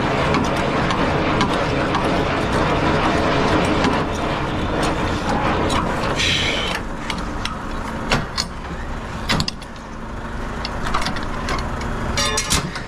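Semi-trailer landing-gear crank being wound by hand, a steady mechanical grinding and rattling over a truck engine running. A short hiss comes about six seconds in, and metal clicks and clanks near the end as the crank handle is hooked back into its holder.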